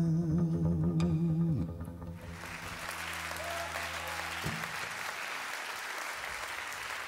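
A singer holds a long note with vibrato over a low sustained accompaniment, ending in a downward slide about a second and a half in. Audience applause then takes over for the rest.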